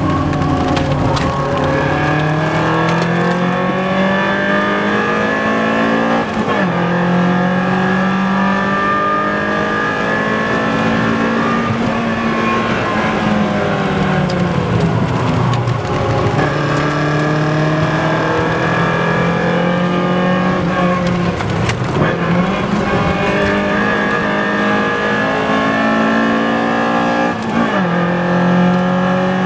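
BMW M3 E30's four-cylinder engine driven hard at high revs, its pitch climbing through the gears and dropping sharply at each upshift, about six seconds in and again near the end. Midway the revs fall away for several seconds, as when slowing for a corner, before the engine pulls up again.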